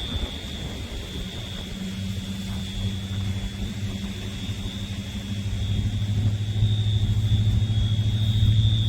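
A motor running with a low steady hum that grows louder over the second half, with a thin steady high whine above it.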